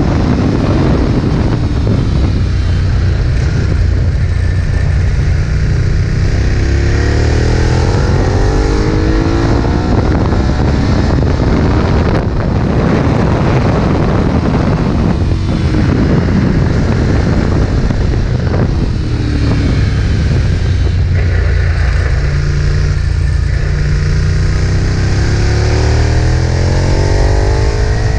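Ducati 1098's L-twin engine under hard acceleration on a race track, climbing in pitch through the gears several times, with the pitch dropping between the climbs at shifts and braking.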